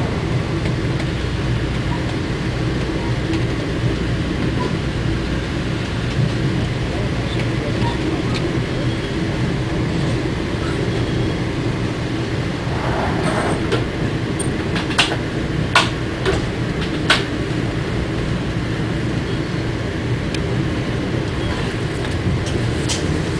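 Inside an Amtrak passenger car: the steady low rumble of the train running at speed on the rails, with a few sharp clicks about fifteen to seventeen seconds in.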